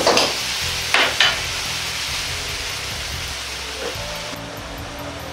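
Stir-fried glass noodles and beef sizzling in a Chinese wok, with a metal ladle scraping and striking the wok: once at the start, then twice in quick succession about a second in. After that the sizzle goes on steadily and slowly fades.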